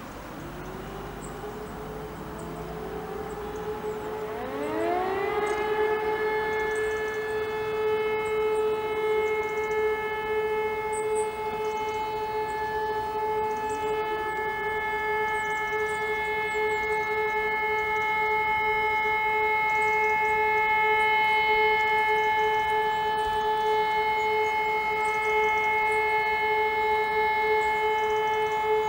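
Several distant civil defence sirens from neighbouring villages wind up one after another, rising in pitch, and then hold one steady tone together. This steady tone is the all-clear signal (Entwarnung).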